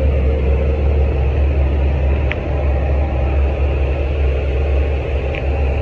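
Steady, loud low rumble with a hiss from the machinery around a parked Boeing 787-9 at its cargo hold, with two brief faint chirps.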